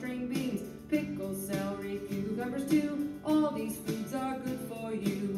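Theme song: singing over strummed acoustic guitar, a cheerful children's song about green foods.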